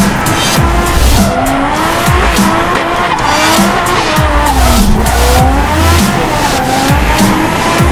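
Drift car tyres squealing in long wavering squeals, with engine noise under them, while a music track with a steady bass beat plays over the top.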